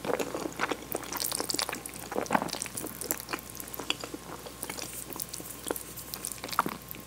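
Close-miked wet chewing of spaghetti in tomato cream sauce: a dense run of short, sticky mouth clicks and smacks.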